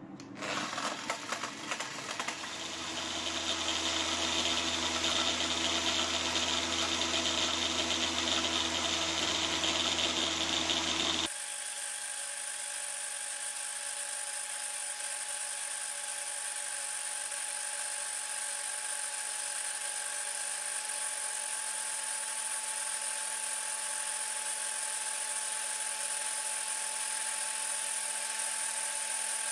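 Electric angle grinder motor running steadily under no real load, spinning a small metal can that throws out cotton candy floss. It comes up to speed over the first couple of seconds. About eleven seconds in the sound changes abruptly to a thinner, steady high whine.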